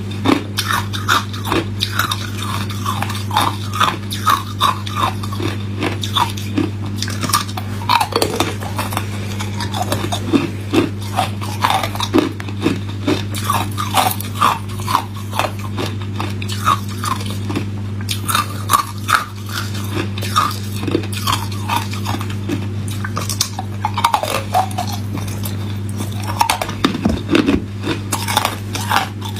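Hard ice being bitten and chewed: a quick run of sharp cracks and crunches as cubes break between the teeth, over a steady low hum.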